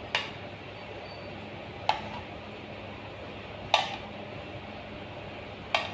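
Four light clinks of a metal fork against a serving dish, about two seconds apart, over a faint steady hum.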